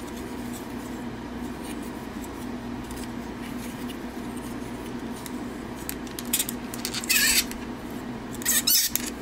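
Hard plastic transforming-toy parts being handled: small clicks and ratchet-joint snaps as the hornet figure's head and clear wings are turned and folded. Several louder clicks and a short scrape come in the last three seconds, over a steady low hum.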